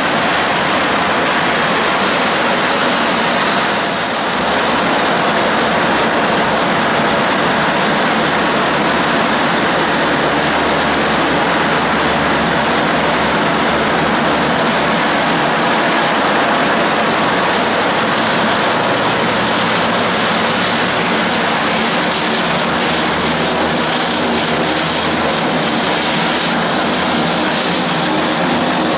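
Turboprop aircraft engines and propellers running loud and steady, a dense rush of noise, with a droning propeller tone growing stronger over the last several seconds.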